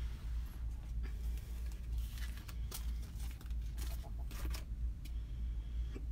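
Rustling, light clicks and scraping of craft supplies being handled, over a steady low hum.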